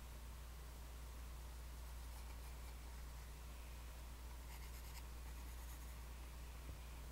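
Graphite pencil drawing on sketchbook paper: faint scratchy strokes, a short run about two seconds in and a clearer one around four and a half seconds in, over a steady low hum.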